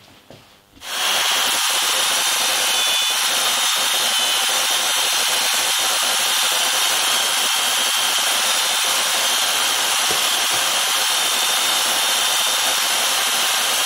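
Benchtop belt sander running with a loud, steady hiss, starting abruptly about a second in, as film-faced plywood parts are sanded straight on the belt.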